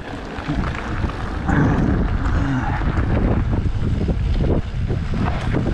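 Mountain bike riding down a dirt trail: wind buffeting the camera's microphone over a steady rumble of tyres on rough ground, with frequent knocks and rattles from the bike.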